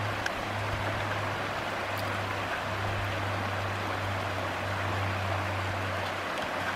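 Mountain stream running over rocks: a steady rushing of water, with a steady low drone underneath.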